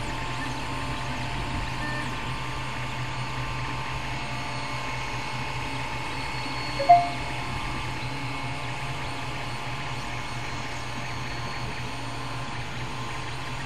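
Steady hum and fan noise of a running 3D printer, with a few fixed whining tones over a low drone. About seven seconds in, a short two-note chirp stands out as the loudest sound.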